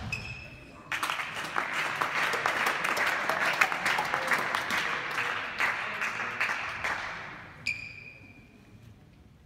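Spectators applauding after a rally ends, the clapping starting suddenly about a second in and dying away over the following seconds.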